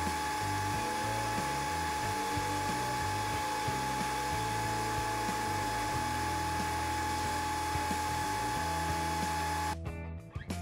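Sandblast cabinet's blast gun hissing steadily as abrasive blasts a small steel bracket toward bare metal, with a thin steady whistling tone over the hiss. The blasting cuts off abruptly near the end, leaving background acoustic guitar music.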